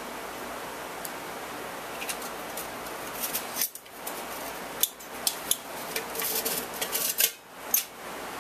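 Small metal camping cook-kit pieces clinking and rattling as they are handled, with a few sharp clicks, over a steady hiss.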